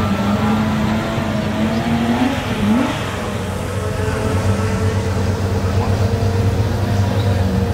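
Race car engine idling steadily, with a short rise in pitch about two and a half seconds in.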